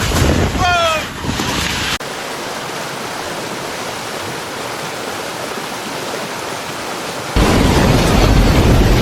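Storm noise of wind and rushing water across several cut clips. A short rising call sounds about a second in, the sound cuts to a quieter steady hiss about two seconds in, and it jumps to louder noise with a deep rumble about seven seconds in.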